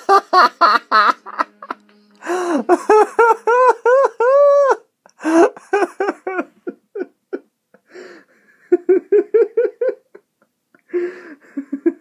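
A person laughing hard, in rapid high-pitched bursts, with a few long rising-and-falling whoops of laughter a few seconds in.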